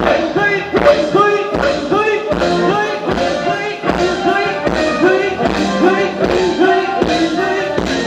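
Live band playing Thai ramwong dance music with a steady, regular beat and a melody line, with some singing.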